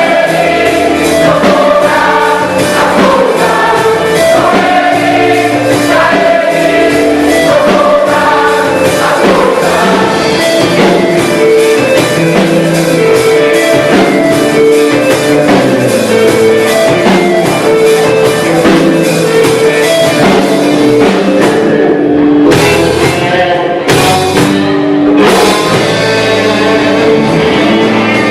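Gospel choir singing with a full band, loud and steady, with a couple of short drops in the cymbals and high end about three quarters of the way through.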